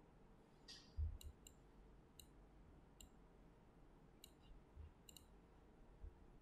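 Faint computer mouse clicks, about eight at irregular intervals, with a dull low thump about a second in.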